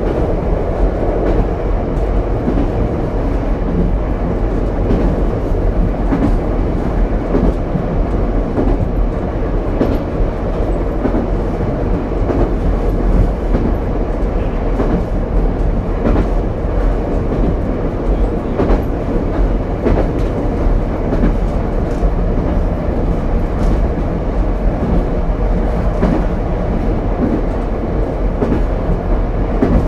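Ichibata Electric Railway 7000-series railcar 7001 running at steady speed, heard from inside the car as a continuous rumble, with light wheel clicks over rail joints at irregular intervals.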